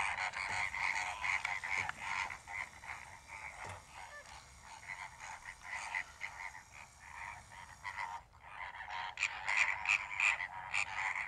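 A flock of greater flamingos keeping up a dense chatter of short, overlapping calls, louder near the end.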